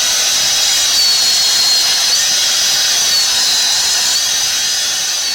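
Angle grinder converted into a small chainsaw running at high speed: a steady high-pitched whine whose pitch sags and recovers a few times.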